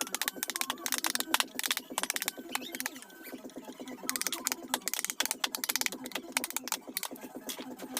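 Rapid, irregular sharp taps, several a second, typical of a mallet striking a carving chisel into teak wood, over a steady low hum.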